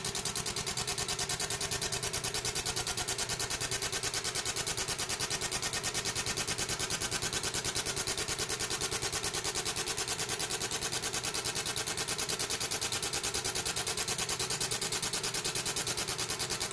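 30-watt fiber laser engraving ceramic tile, its beam scanning line after line across the design, giving a steady, rapid, even pulsing buzz.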